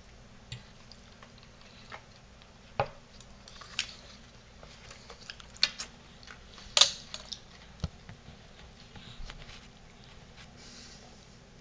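A baby eating and handling cooked fettuccine noodles at a high-chair tray: scattered short clicks and taps from mouth and hands, the loudest about seven seconds in.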